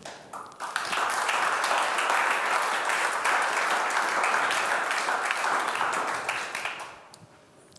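Audience applauding: dense clapping that starts about half a second in and dies away near the end.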